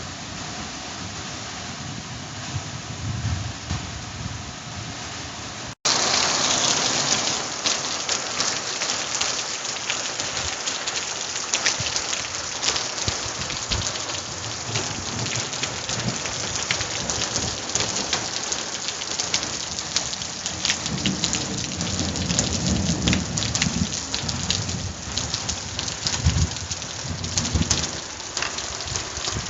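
Heavy summer downpour, dense rain pelting hard surfaces with a loud crackle, with low rumbles of thunder underneath. About six seconds in it cuts abruptly from a quieter stretch of rain to the full, much louder downpour.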